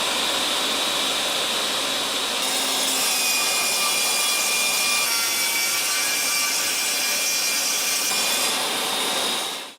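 Metabo TS 254 M 10-inch table saw running and cutting wood: a steady high whine over a rasping blade noise, which cuts off suddenly near the end.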